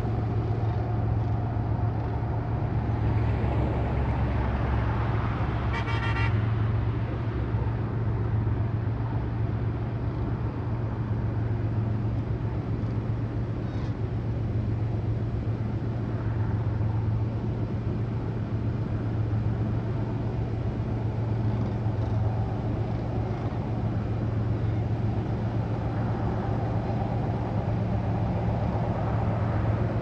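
A flock of sandhill cranes calling, with one short, louder call about six seconds in, over a steady low hum.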